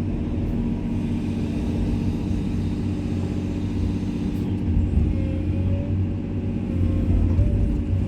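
Komatsu excavator's diesel engine running steadily at a working pace, a low rumble with a faint wavering whine above it.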